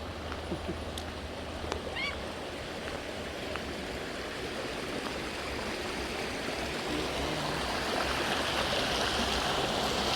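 Creek water rushing over rocks, a steady rushing that grows gradually louder toward the end.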